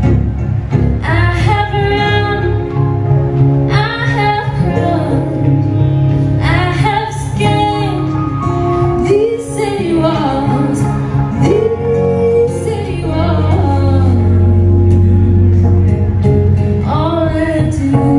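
Live folk band: a woman singing in phrases, accompanied by five-string banjo, acoustic guitar and bodhrán.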